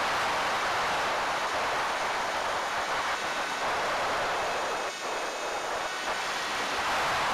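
Steady rush of wind noise on the onboard camera's microphone of a ZOHD Drift FPV plane flying a low, fast pass, with a faint high whine from about three seconds in and a brief dip in level about five seconds in.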